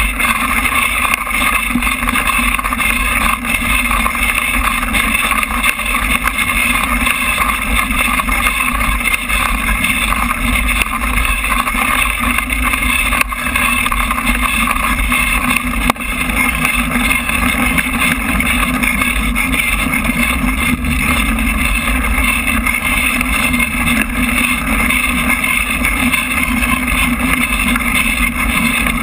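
Steady rushing noise of wind buffeting an action camera and tyres rumbling over a dirt trail while mountain biking, with a couple of sharper knocks from bumps partway through.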